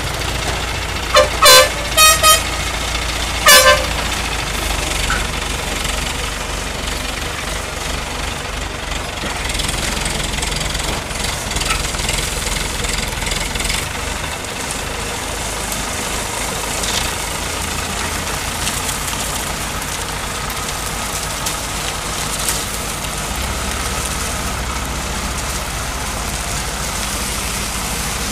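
A vehicle horn toots about five times in quick short blasts in the first few seconds. After that comes the steady low running of the heavy truck engine hauling the load.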